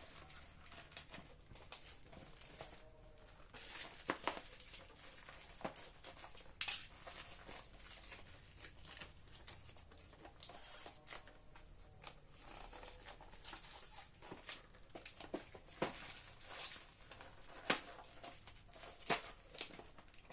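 Handling noises: scattered small clicks and knocks with rustling and crinkling, with a few sharper taps about four, seven, eighteen and nineteen seconds in.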